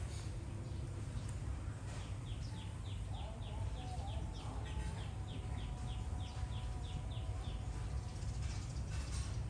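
A bird calling a quick run of short falling notes, about four a second, for several seconds in the middle, over a steady low rumble.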